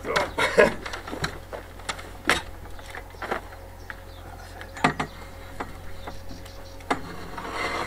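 Irregular knocks and clicks of a solar panel's frame being handled and passed up onto a camper van roof, over a faint steady hum.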